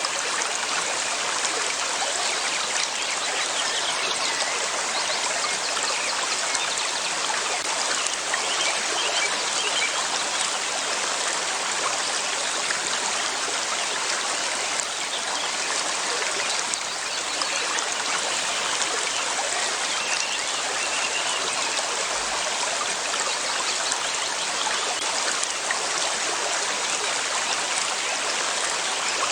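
River water flowing over rocks, a steady, even rush with trickling, unchanging in level.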